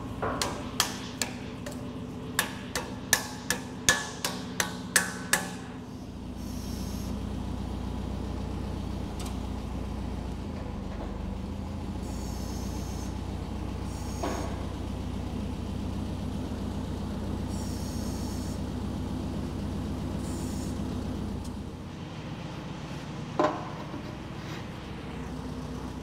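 About a dozen sharp hammer blows on steel in quick succession, typical of driving a loader pivot pin into its bore. They are followed by a steady low machine hum, with one more knock near the end.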